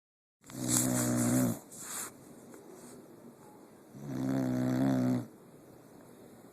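A sleeping pet snoring: two snores about a second long each, some three and a half seconds apart, with a short, softer breath just after the first.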